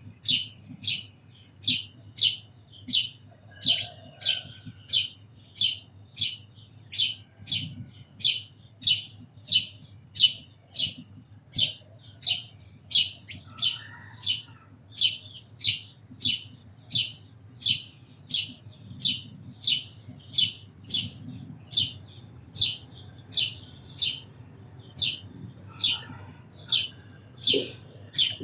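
House sparrow chirping steadily: one short, high cheep repeated about twice a second, over a faint low hum.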